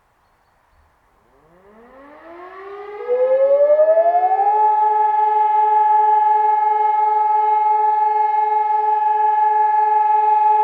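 Civil defence sirens, among them an E57 motor siren and a Sonnenburg SES 1200 electronic siren, starting up for a test alarm. Several fainter sirens spin up with rising pitch. A loud one rises about three seconds in and from about four and a half seconds holds a steady tone.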